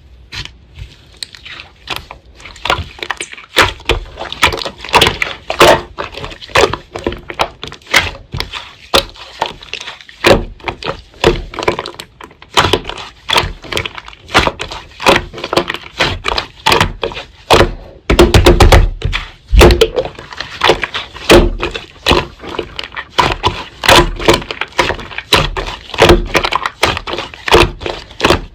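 Slime being pressed and squeezed by hand, a dense, irregular run of crackling pops and clicks from trapped air, with a heavier, thicker stretch of squelching about two-thirds of the way through.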